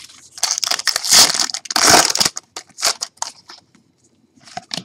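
A foil trading-card pack being torn open and its wrapper crinkled: loud crackling for about two seconds, then a few lighter clicks and rustles as the cards are handled.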